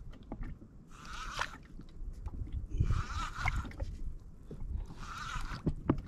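Kayak paddle strokes, the blades swishing through the water about once every two seconds, three strokes in all, with small knocks against the hull.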